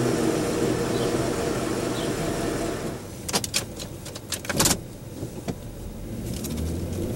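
Ford F-150's 5.4L three-valve Triton V8 idling through a Corsa cat-back exhaust, heard from outside by the truck, easing down a little over the first few seconds. Then a quieter stretch with a quick string of sharp clicks and knocks, and the V8 idle comes back in low near the end, heard from inside the cab.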